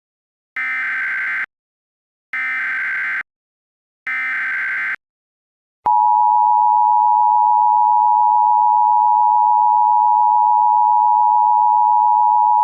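Emergency Alert System tones: three short bursts of buzzy digital SAME header data, each just under a second long. About six seconds in, they are followed by the steady, loud two-tone EAS attention signal, which holds without a break.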